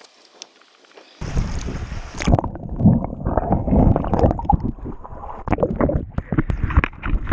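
Shallow seawater sloshing and gurgling right over a submerged microphone, with sharp knocks and clatters of beach stones as a hand turns them over and pulls out a lobster. It starts suddenly about a second in and cuts off abruptly at the end.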